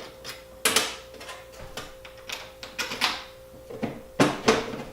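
Sharp clicks and knocks of metal drill parts being handled and fitted together during reassembly. There are loud knocks about a second in, at about three seconds and twice near the end, with lighter clicks between, over a faint steady hum.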